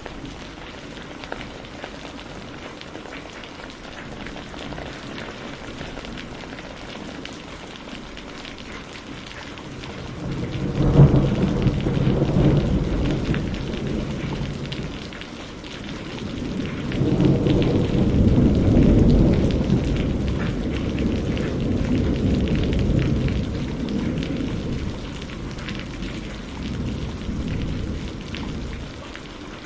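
Steady rain falling, with thunder: about a third of the way in a sharp crack breaks into a low rumble, and a second, longer rumble swells a few seconds later and slowly dies away near the end.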